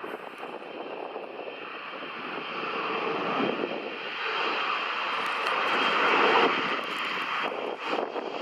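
Turbofan engines of an Embraer E-Jet regional airliner at takeoff power: a jet roar that grows louder over about six seconds, then eases off slightly.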